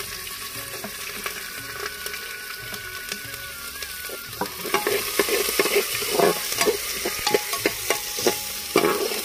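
Chopped onion sizzling in hot mustard oil with whole spices in a metal pot. From about four seconds in, a steel ladle stirs it, with repeated scrapes and knocks against the pot.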